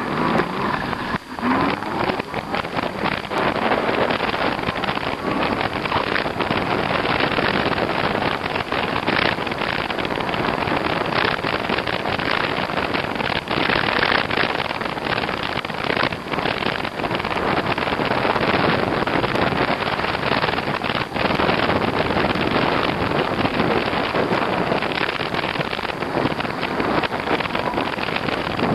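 Wind rushing and buffeting over the microphone of a moving e-bike, a steady loud roar with constant flutter.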